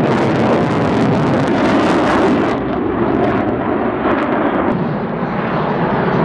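A fighter jet's engines running loud and steady as it flies overhead, a dense rushing noise that eases slightly about five seconds in.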